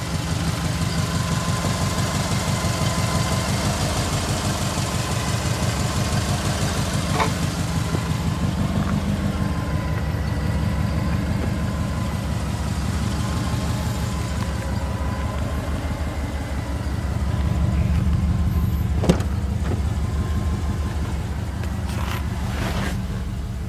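Subaru EJ25 2.5-litre flat-four boxer engine idling steadily through an unequal-length header and a straight-through muffler, giving a low, even pulsing exhaust note. A few sharp clicks sound over it, one about seven seconds in and more near the end.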